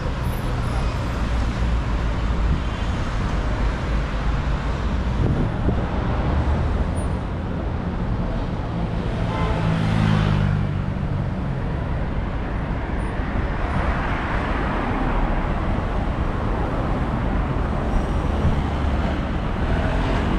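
Busy city street traffic: cars and buses running past in a continuous rumble, with one louder passing engine about ten seconds in.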